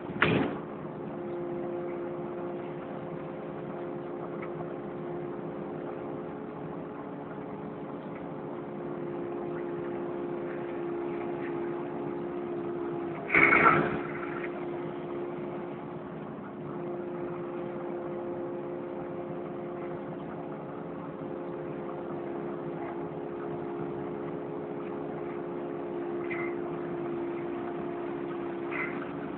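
Kubota KX080 excavator's diesel engine running steadily as the machine digs, heard from a phone fixed to the cab, with a loud clunk from the machine about halfway through.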